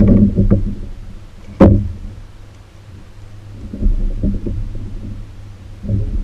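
Low thumps and rumbling handling noise on a kayak as a trotline reel is moved about, with one sharp knock about a second and a half in.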